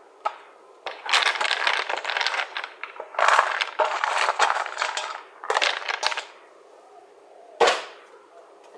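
Dry dog biscuits rattling as they are scooped and poured into bowls, in three spells of dense clattering, then a single sharp knock near the end.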